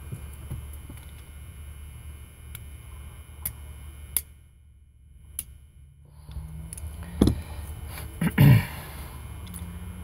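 Small metal tools clicking and tapping against a Dexter deadbolt lock cylinder while working at its seized detent pin, with two louder knocks near the end.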